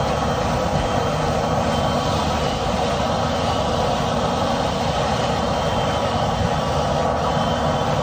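Dryer vent cleaning equipment running steadily while a hose is worked through the vent: a constant machine whir with a faint steady whine, unchanging in level.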